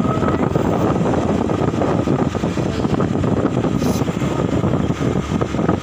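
Wind buffeting the microphone on a moving motorbike, with the bike's engine running steadily underneath.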